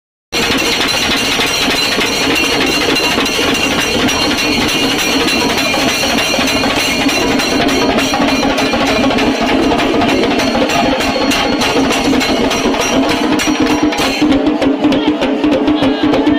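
Group of chenda drums beaten fast with sticks, a dense, loud, unbroken stream of strokes.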